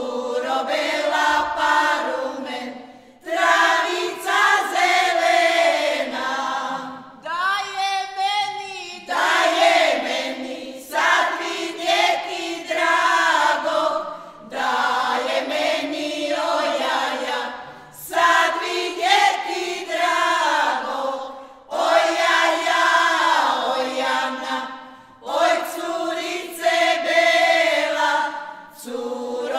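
Women's folk choir singing a traditional Turopolje folk song a cappella, in sustained phrases of a few seconds with short breaths between. Around seven seconds in, a single voice, the lead singer who starts the verses, sings a wavering line alone before the group comes back in.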